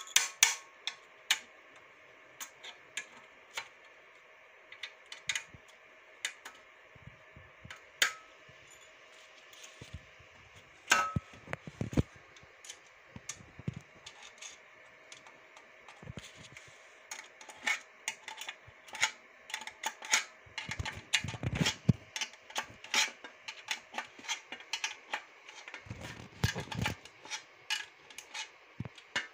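Irregular clicks, taps and clinks of small metal screws and a plastic part being handled and fitted together by hand, coming thicker in the second half. A faint steady hum lies under the first half.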